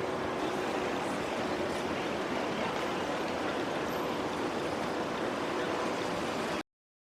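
Steady rushing noise with a faint hum in the first second, cutting off abruptly near the end.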